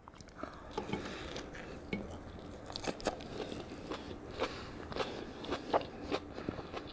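A person chewing close to the microphone, with irregular wet mouth clicks and soft crunches as she eats a beef tongue taco.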